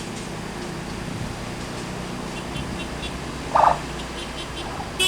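A large vehicle's engine idling with a steady low rumble. A brief higher-pitched sound cuts in once about three and a half seconds in.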